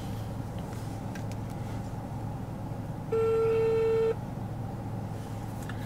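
Outgoing phone call's ringback tone: one steady ring lasting about a second, about three seconds in, while the call waits to be answered, over a steady low hum.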